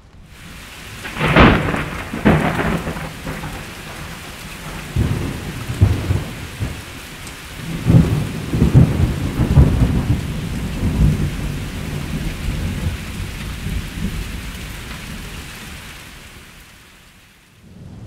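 Thunderstorm with steady rain: two loud thunderclaps a second or so apart a little after the start, then long rolling thunder rumbles that die away near the end.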